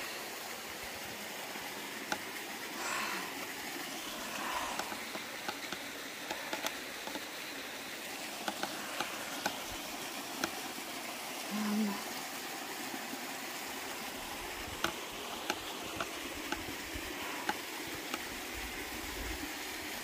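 Steady rush of a small waterfall and creek, with scattered sharp crunches and ticks of footsteps on dry leaves, dirt and loose stones going down a steep trail.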